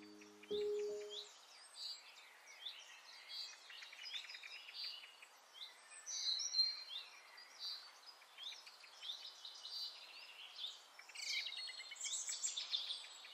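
Many small birds chirping and twittering, a dense chorus of short rising and falling calls, with a last low musical note sounding briefly about half a second in.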